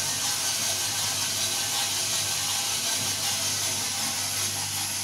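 Gas-fired coffee drum roaster running mid-roast: the gas burner's steady hiss, with a steady low hum underneath.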